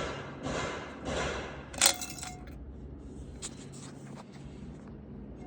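Small metal parts of a pull-start recoil being handled during reassembly. A few scraping swishes come first, then a sharp metallic clink with a short ring about two seconds in, then a few light clicks.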